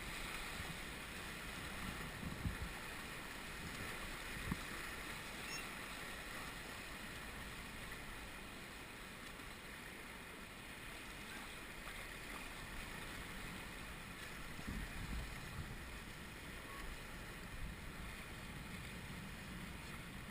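River water rushing steadily around a raft, with wind on the microphone and a few brief low thumps.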